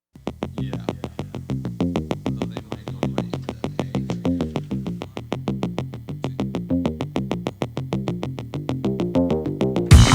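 Electronic background music: a fast run of short synthesizer notes at an even pace, about five a second, with a fuller, louder beat coming in near the end.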